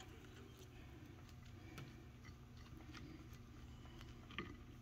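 Near silence with a few faint, short taps from a silicone basting brush dabbing honey soy sauce onto chicken wings on a plate and dipping into a glass bowl. The clearest tap comes near the end.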